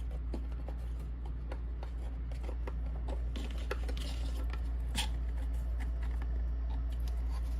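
Light handling of card and board pieces being positioned and lined up: scattered small taps and clicks, with a brief rub about four seconds in, over a steady low hum.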